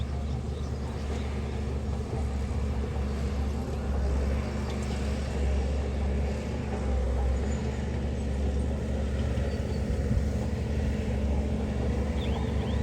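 Diesel engine of heavy earthmoving equipment running steadily, a constant low rumble.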